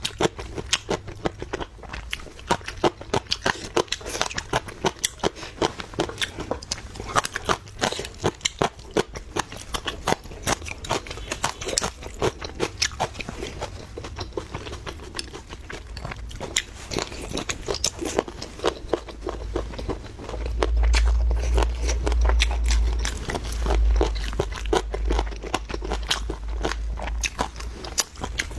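A person biting and chewing crunchy food close to the microphone, with many irregular crunches and crackles. A deep rumble swells for a few seconds past the middle.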